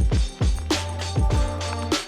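Background music with a steady beat: deep kick drums and sharp snare hits over a held bass note.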